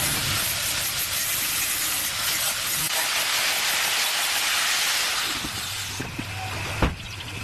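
A steady loud hiss that fades out about six seconds in, followed by a sharp knock near the end.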